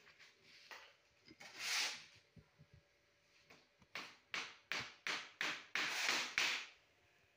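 A shovel scraping and raking sand-cement mix in the mold tray of a concrete-block press: one swish about two seconds in, then a quick run of about seven scrapes, roughly three a second, near the end.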